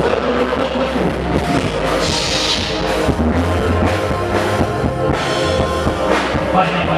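Live band music with a drum kit and bass playing a steady beat, loud and filling the hall.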